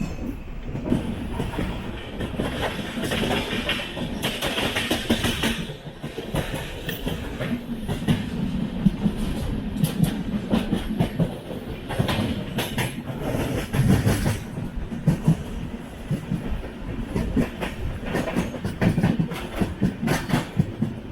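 Passenger train running on the track: a steady rumble of coach wheels on the rails, with irregular sharp clacks over the rail joints.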